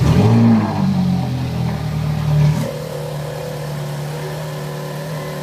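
Ferrari 458 Italia's V8 firing up with a loud flare, its revs rising and falling, then running at a fast idle. About two and a half seconds in it drops to a steady, lower idle.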